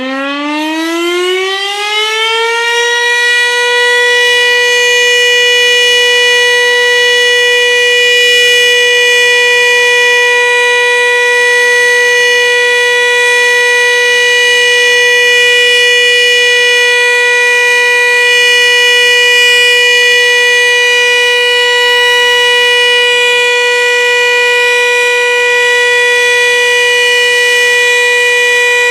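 Volunteer fire station's alarm siren winding up, its pitch rising over the first three seconds, then holding one loud, steady tone: the continuous signal sounded for the Warsaw Uprising's "W" hour.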